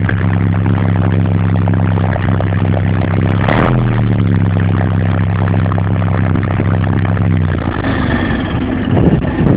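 Engine of a TTM-3902GR tracked transporter running steadily under a break-in run after repair. About three and a half seconds in there is a brief burst of noise with a small shift in engine pitch, and near the end the steady engine note falls away into rougher noise.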